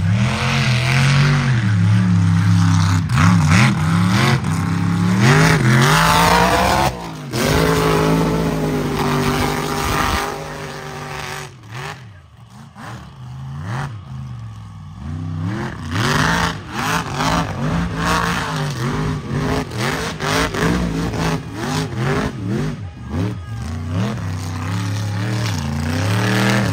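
A mega truck's big engine revving hard and repeatedly, its pitch climbing and dropping with each throttle blip. It eases off to a quieter, lower running about halfway through, then revs up again.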